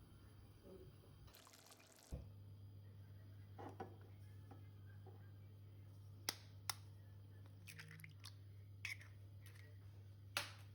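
Near silence with a steady low hum, broken by a brief rustle and about five light, sharp clicks and taps.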